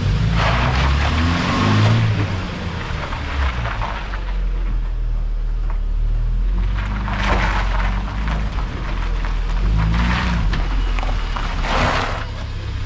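UAZ Patriot engine running, its revs rising with a rush of noise three times, about half a second, seven seconds and ten seconds in. The engine is misfiring, which the owner puts down to the ignition coils.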